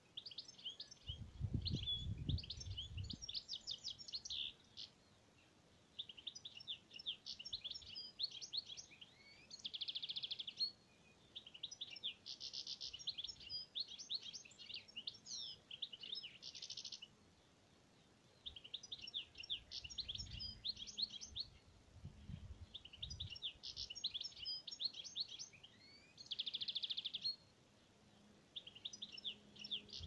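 A songbird singing repeated phrases of quick high notes, each a couple of seconds long with short pauses between, some ending in a dense buzzy trill. Brief low rumbles come twice, near the start and about two-thirds of the way through.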